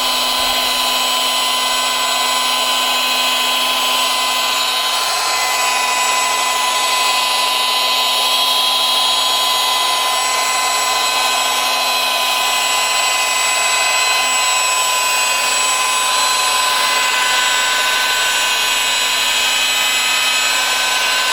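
Electric rotary polisher running steadily with a constant whine, buffing compound into a boat's fibreglass gel coat.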